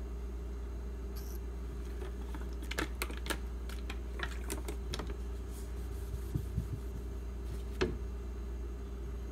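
Irregular light clicks and taps of a pocketknife being handled at a sharpening stone, clustered in the middle with one more near the end, over a steady low hum.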